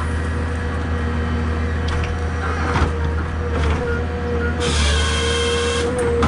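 Forestry machine's diesel engine running steadily under a constant hydraulic whine. There are a few knocks about three seconds in, and a hiss from about four and a half to six seconds in.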